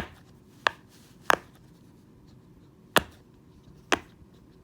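Silicone Pop-It fidget toy bubbles being pushed through: five sharp pops, unevenly spaced, over about four seconds.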